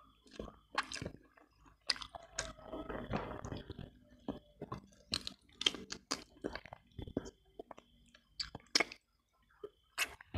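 Close-up mouth sounds of a person eating tender boiled chicken: wet chewing with many sharp lip smacks and clicks, and a denser stretch of chewing a couple of seconds in.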